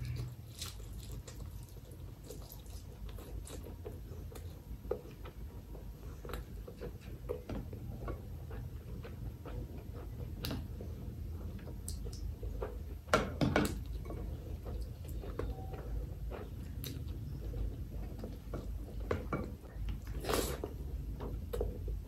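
Close-miked eating sounds: wet chewing, smacks and squishes of rice and chicken liver curry eaten by hand, in scattered short bursts. About halfway through comes a denser run of clinks and wet sounds as gravy is poured from a glass bowl onto the rice, and near the end there is one louder smack.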